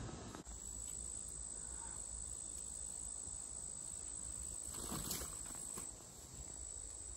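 Insects, crickets or katydids, trilling in one steady high-pitched tone over low outdoor background noise, with one brief faint sound about five seconds in.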